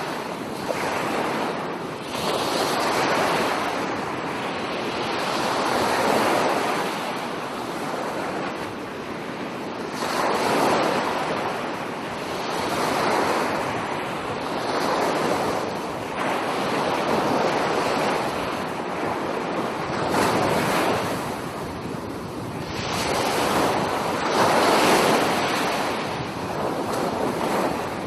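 Small sea waves washing onto a sandy beach, the surf swelling and fading every two to three seconds.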